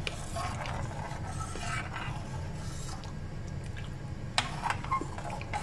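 Steel ladle stirring milk in a stainless steel pan as it heats toward the boil, with scraping and light clinks against the pan and one sharper clink about four seconds in. A steady low hum runs beneath.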